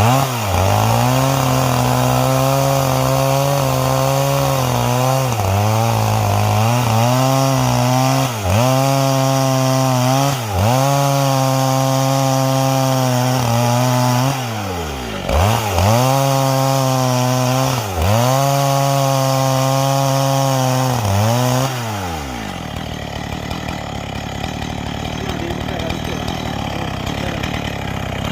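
Chainsaw with a square-ground chain ripping lengthwise through a garapa log, running at high speed with its pitch dipping briefly and recovering about six times. About three-quarters of the way through, the engine note drops away, leaving a quieter rough noise.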